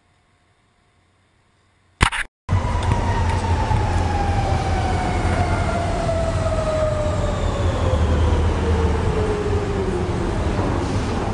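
Metro train pulling into an underground station, its motor whine falling steadily in pitch as it brakes over a steady rumble. It cuts in abruptly about two seconds in.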